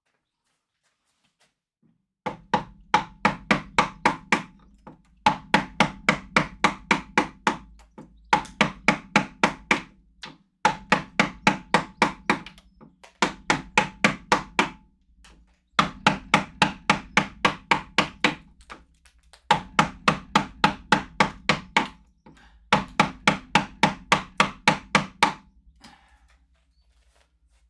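A carving mallet striking a chisel into wood in quick, even blows, about four or five a second. The blows come in runs of about ten, with short pauses between the runs, for about eight runs.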